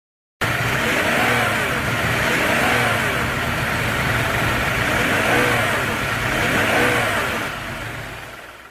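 A car driving, a steady rush of noise with a pitch that rises and falls several times like revving, fading out near the end.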